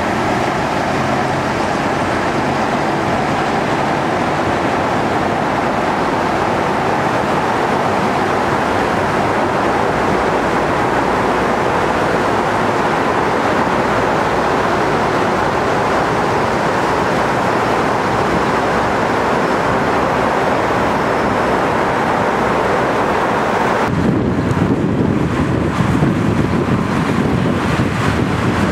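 Steady road and wind noise inside a vehicle moving at highway speed, echoing off the walls of a road tunnel. About 24 seconds in, the noise turns lower and more rumbling as the vehicle comes out of the tunnel onto open highway.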